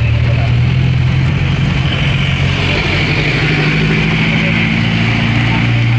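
Engine of a small motor vehicle running on the move, heard from inside the passenger cab, with a steady low hum and road noise. The engine note rises about halfway through and settles back near the end.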